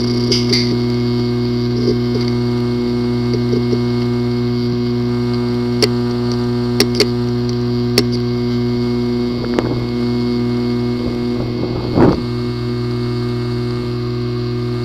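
Failing hard drive with a physically damaged disk assembly, powered up: a steady motor hum with scattered sharp clicks, a few in the middle and a louder knock about twelve seconds in. The clicking is the symptom of damaged heads or platters that leave the drive inaccessible.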